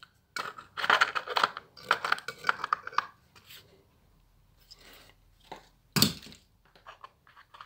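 A dry old pouch crackling and crinkling as fingers work it loose from a crack in a stone wall: irregular crackles for about three seconds, then a pause and one louder crackle about six seconds in.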